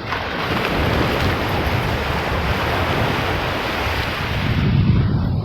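Waves washing on a beach, a steady rush of surf, with wind buffeting the microphone and adding a low rumble that grows stronger near the end.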